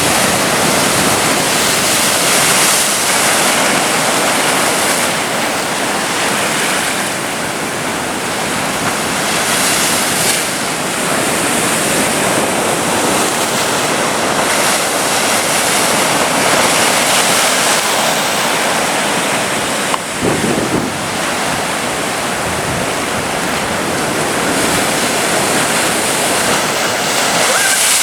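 Atlantic surf breaking and washing on a sandy beach: a steady, loud rush of waves that swells and eases, with a brief low bump about twenty seconds in.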